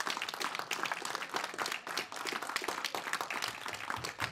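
A room of people applauding: dense, steady clapping from many hands.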